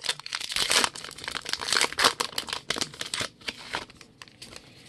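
A 2020 Topps Archives baseball card pack's wrapper being torn open and crinkled by hand, a dense run of crackling that thins out and dies away about four seconds in.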